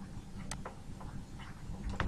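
Faint scattered clicks over a low, steady hum: quiet room tone in a pause between words.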